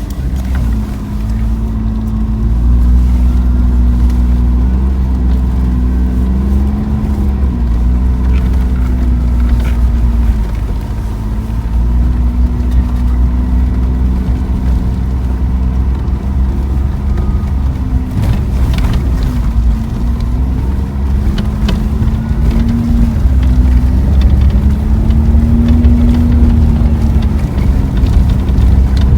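A car being driven, with a continuous low road-and-engine rumble and an engine hum that drifts up and down with speed.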